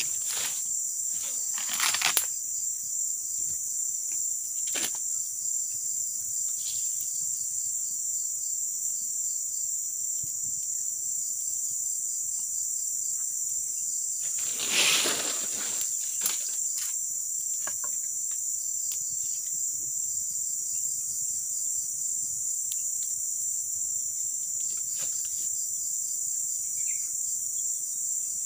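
Steady high-pitched chorus of forest insects, unbroken throughout. A few brief rustles and knocks sound over it, the loudest about halfway through.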